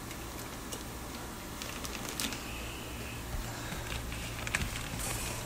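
Plastic fish bags and a cardboard shipping box being handled: scattered crinkles, rustles and light clicks, over a low steady hum.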